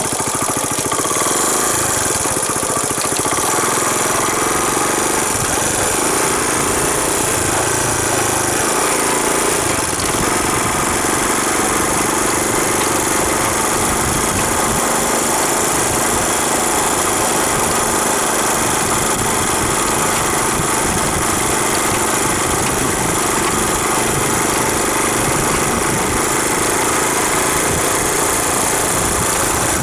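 1978 Honda CT90 trail bike's small single-cylinder four-stroke engine running steadily as the bike is ridden.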